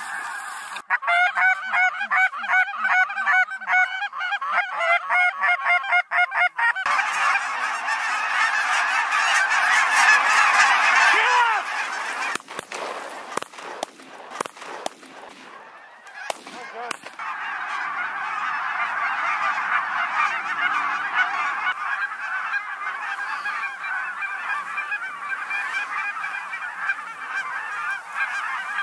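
A large flock of geese, snow geese among them, calling in flight: a dense, continuous honking chorus. Early on, a stretch of evenly repeated honks runs for several seconds. Around the middle the chorus thins briefly, with a few clicks, then swells back.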